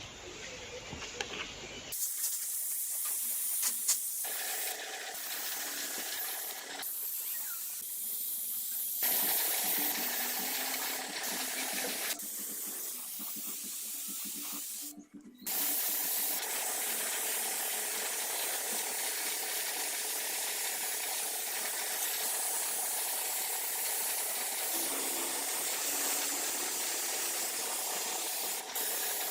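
Steady spraying hiss from a jet, cutting out and starting again abruptly several times.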